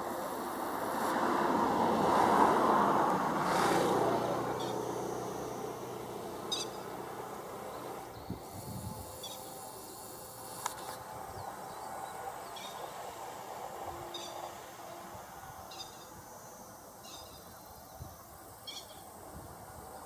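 A passing vehicle's rush swells and fades over the first few seconds. After it, grey-headed lapwings give short, high calls, one every second or two.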